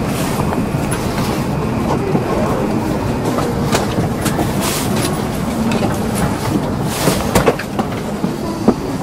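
Shinkansen station platform ambience: a steady noise of trains and the busy station, with scattered clicks and knocks that are loudest near the end.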